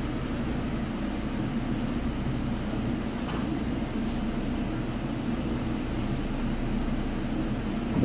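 Steady low rumble and hum inside a Seoul Line 1 subway train car standing at a station platform, with a faint click about three seconds in and a brief thump right at the end.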